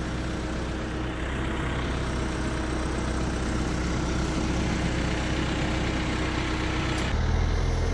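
Vehicle engine running steadily. About seven seconds in the sound changes abruptly to a heavier, deeper engine sound.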